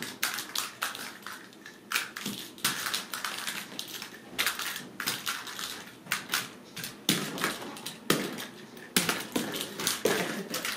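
Ragdoll kittens scampering and playing with toys: a quick, irregular patter of clicks, taps and rustles from paws, claws and toys on the rug and wooden floor.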